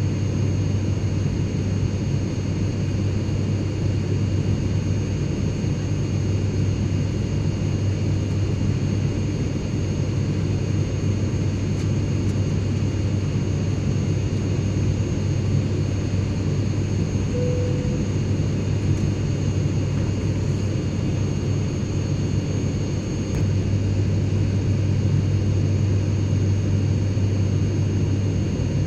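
Airliner cabin noise in flight: a steady low engine drone and air rush, with a deep hum and faint high whines. It gets slightly louder about 23 seconds in.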